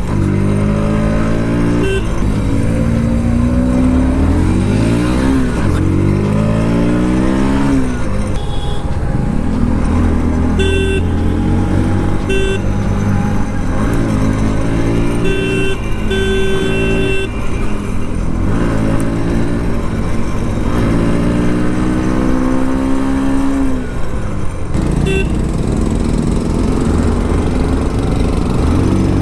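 Bajaj Pulsar NS 125 motorcycle's single-cylinder engine under way, its pitch climbing as it accelerates and dropping back at each gear change, over wind and road noise. Short vehicle-horn beeps sound several times through the middle and again near the end.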